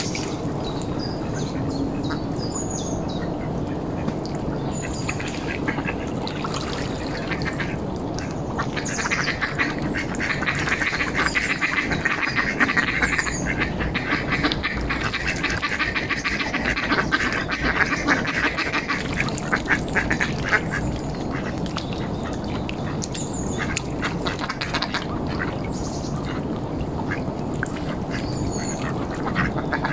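Mallard ducks quacking. About nine seconds in, the quacks turn into a dense, rapid run that lasts some twelve seconds and then thins out again.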